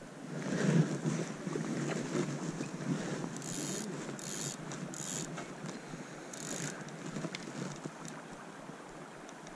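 Handling noise as an angler moves a fishing rod with a spinning reel: clothing rustles against a chest-mounted camera, loudest about a second in. In the middle come four short, high, hissy mechanical bursts.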